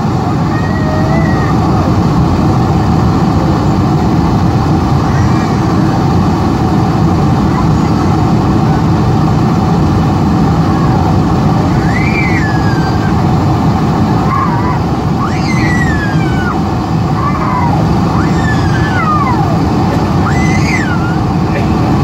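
Steady cabin noise inside a Boeing 747-400ER on approach, the engines and the airflow over the extended flaps heard from a seat by the wing. A few brief high-pitched sliding sounds come through about halfway through and again near the end.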